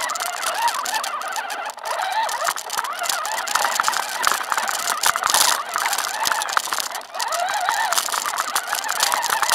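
1:6 scale RC 4x4 truck driving over rough dirt, heard up close from on board: a motor and gear whine that rises and falls with the throttle over constant rattling and clicking of the chassis, easing off briefly twice.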